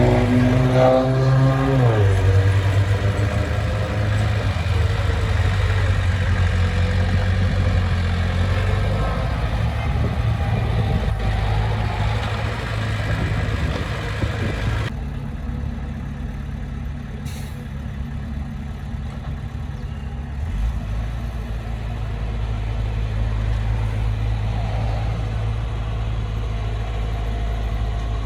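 Heavy diesel engine of earthmoving machinery running: the revs fall off in the first couple of seconds, then it runs steadily at low revs. The sound changes abruptly about halfway through, becoming duller, with the engine still running.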